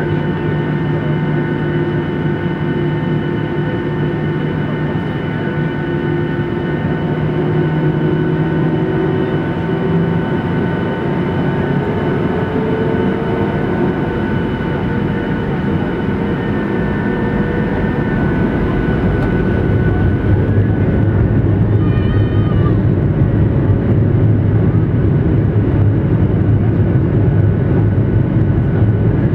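Jet engine noise inside the cabin of a Boeing 737-800 taxiing, heard at a window seat over the wing: a steady whine made of several held tones. About a third of the way in, one tone rises in pitch. About two-thirds in, a low rumble grows and the sound gets louder.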